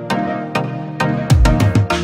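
Background music with a steady beat of about two strokes a second. Deep bass drum hits come in about a second and a half in.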